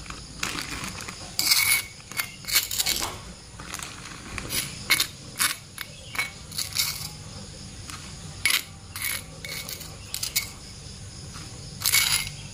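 Metal spoon scraping and clinking against a stone mortar in short, irregular strokes as a crumbly mix is scooped into a plastic bag, with the bag crinkling.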